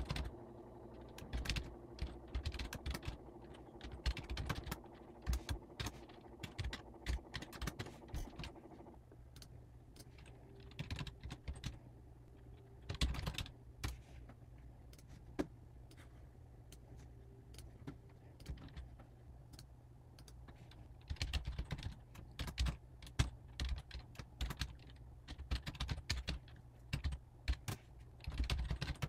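Typing on a computer keyboard: bursts of rapid keystroke clicks with short pauses between them, thinning out for a few seconds midway.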